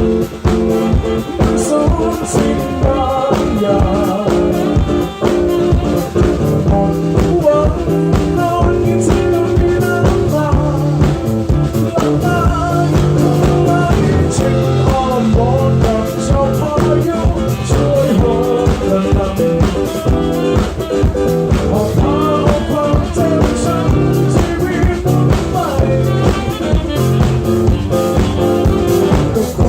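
Band music with a steady drum beat, bass and guitar carrying a melody, with no words.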